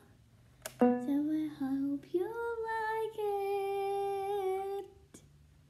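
A girl singing a short wordless tune: a few quick notes, then a rising glide into a long held note that stops about five seconds in.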